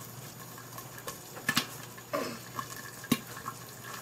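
Popcorn popping in hot oil under a glass lid: a few sharp, scattered pops over a steady sizzle, with a cluster of two about one and a half seconds in and a single loud pop about three seconds in.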